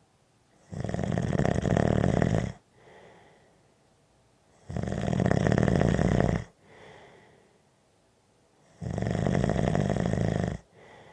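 Snoring: three long, loud snores about four seconds apart, each followed by a short, much quieter breath out.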